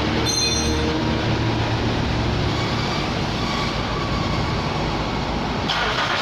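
Honda Accord 3.5-litre V6 engine running with a steady mechanical noise; a brighter, hissier sound comes in near the end.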